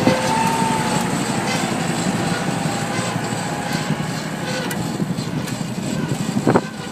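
Grass-cutting machine running steadily with a dense mechanical noise. There is a sharp knock at the start and another about six and a half seconds in, after which it is slightly quieter.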